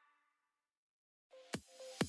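Background music changing tracks: the last notes of one piece fade out, a second or so of silence follows, and an electronic track starts with a sharp beat hit about one and a half seconds in.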